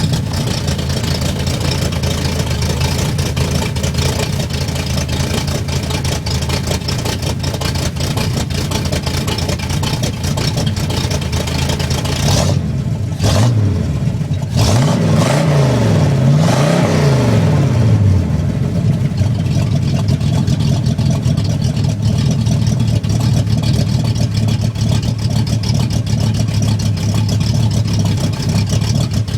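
Oldsmobile 455 V8 idling, revved in a few quick blips about halfway through, then settling back to a steady idle. The owner says the engine has a knock and a bad carburetor.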